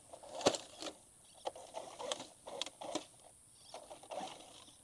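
Dry grass and brush crackling and rustling in irregular snaps, the loudest about half a second in.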